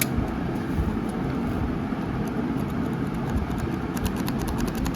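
Scraping at corroded battery contacts, heard as a run of quick scratchy clicks near the end, over a steady low background rumble.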